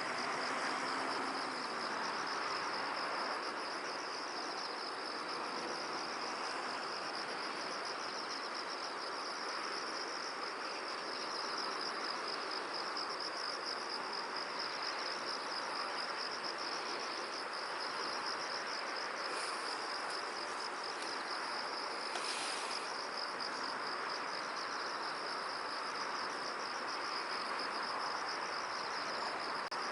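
Insects trilling steadily in a high, rapidly pulsing chorus, over a steady hiss of wind, with one brief higher chirp about three-quarters of the way through.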